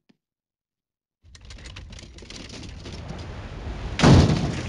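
Cartoon sound effect: a rattling, rumbling roll that starts about a second in and builds, then a loud crash about four seconds in as something on wheels hits the foot of a cliff.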